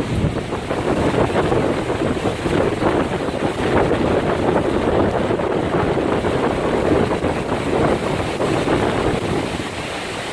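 Hurricane-force wind gusting through palms and shrubs with heavy, driving rain, the gusts buffeting the microphone; it eases slightly near the end.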